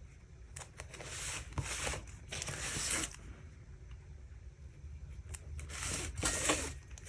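Bold-tip permanent marker drawn across watercolour paper: several scratchy strokes, each half a second to a second long, with a pause of about two seconds before the last one.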